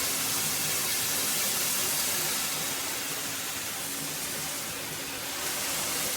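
KAIYING high-pressure handheld shower head spraying water in a steady hiss.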